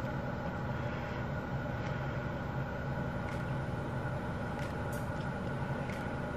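A steady low hum over a faint hiss, with a few faint ticks in the second half.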